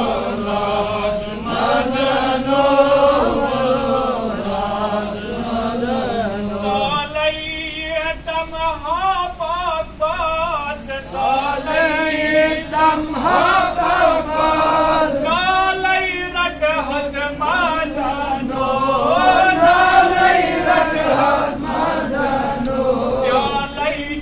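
A man's voice chanting Sufi devotional poetry (kalam) without instruments, in a continuous melismatic line with wavering ornaments. About seven seconds in, the melody moves to a higher register.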